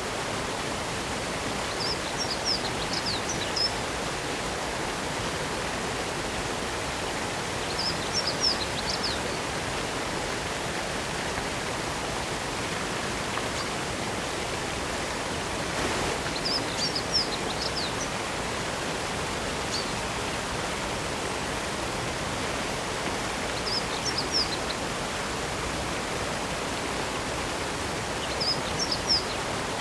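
Steady rush of water falling at a waterfall, with a small bird singing a short, high, twittering phrase about every six seconds, five times.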